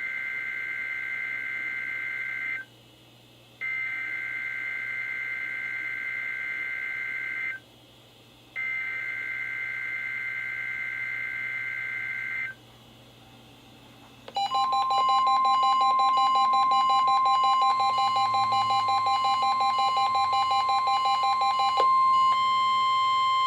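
NOAA Weather Radio SAME header for a Required Weekly Test: three four-second bursts of two-tone digital data, each followed by a second of pause. About fourteen seconds in, the weather radios' alarms go off together, much louder: a steady beep near 1 kHz and a fast-pulsing tone. The pulsing tone stops about eight seconds later, and the steady beep cuts off near the end.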